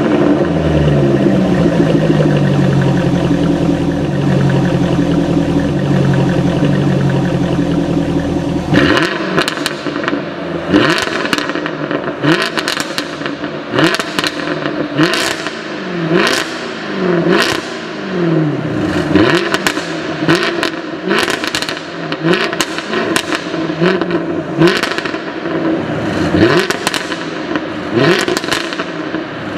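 V8 car engine running steadily for about nine seconds. It then switches abruptly to a series of quick throttle blips, each rev rising and falling about every second and a half, with crackling pops from the exhaust.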